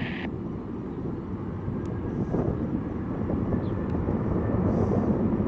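Low, steady rumble of jet airliner engines heard from afar, growing a little louder about two seconds in.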